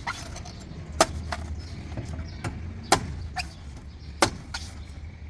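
A knife chopping into a fresh coconut: three sharp, loud strikes about a second or two apart, with lighter knocks between them, over a steady low hum.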